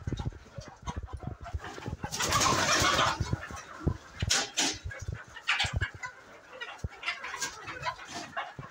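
A flock of Fayoumi chickens clucking and calling in short, scattered bursts, with a louder noisy flurry about two seconds in.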